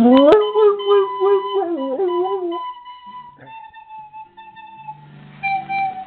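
Coonhound howling: one long howl that slides up in pitch, then holds and wavers for about two and a half seconds before fading.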